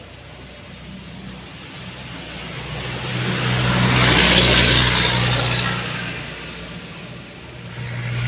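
A motor vehicle passing by, growing louder to a peak about halfway through and then fading away, with a steady engine hum underneath and another rising near the end.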